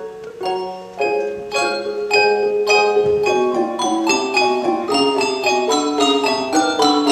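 A handbell choir playing: struck handbell chords ring out. The notes come thicker and louder after about a second.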